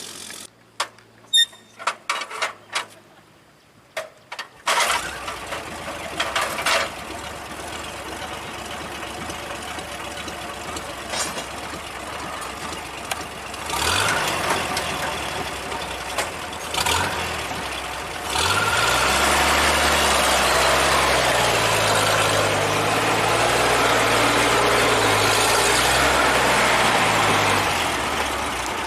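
ZIL-164 truck's six-cylinder side-valve petrol engine. After a few sharp clicks it starts about five seconds in and runs, then revs up a little past halfway and keeps running louder at higher speed.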